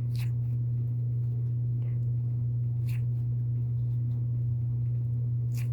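A steady low hum with a few faint, soft clicks.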